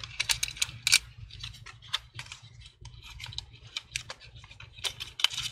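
Irregular small clicks and scratchy ticks of fingers pulling thin Wi-Fi antenna cables out of their plastic routing clips inside an open laptop, over a faint low hum.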